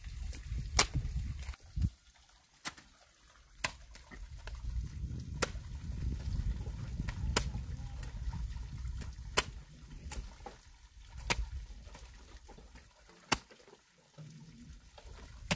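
Repeated sharp strikes, about one every one to two seconds, over a low rumble.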